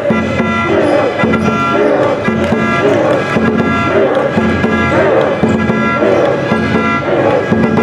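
Music with a steady drum beat under held instrument notes, with voices over it, the kind of drum-led band and chanting a cheering section plays at a high school game.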